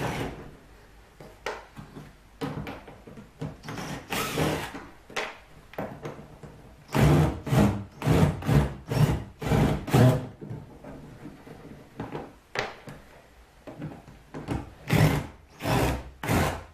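Power drill/driver running in short repeated bursts, backing out the four screws that hold a rod-tube fitting to a kayak hull, with handling and scraping noises between bursts.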